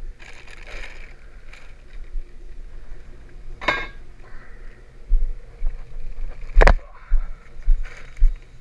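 A woven plastic sack of wood being handled and rustled while the hopper is refilled, with two sharp knocks, the louder one about two-thirds of the way through, and uneven low thumps of handling in the second half. Under it runs the low, steady hum of the truck's V10 engine idling.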